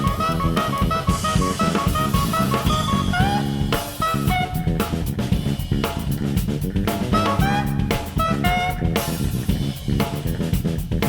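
Jazz trio of tenor-range saxophone, electric bass and drum kit playing, the drum kit busy and to the fore with kick, snare and rimshots, with the bass underneath and short saxophone phrases coming in and out.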